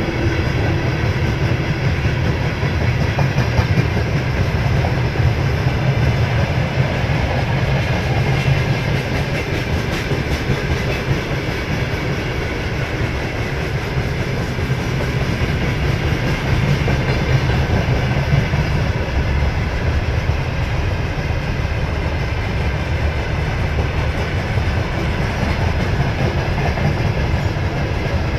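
Freight train wagons (tank cars, gondolas and hopper cars) rolling past, a loud, steady rumble of steel wheels on the rails.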